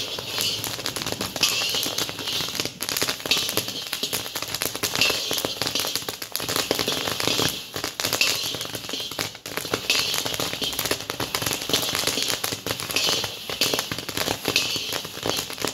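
Maize kernels popping in a covered pot: a dense, irregular crackle of pops over a steady hiss.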